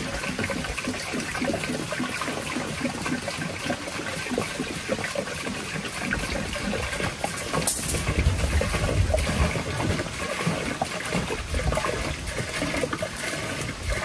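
Liquid pouring steadily from a large plastic jug into the tank of a backpack sprayer, trickling and splashing. There is a brief knock about halfway through.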